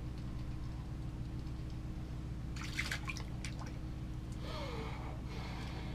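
Water splashing and dripping as a small fish is lifted out of an ice fishing hole, with a cluster of sharp clicks about halfway through and more wet noise near the end, over a steady low hum.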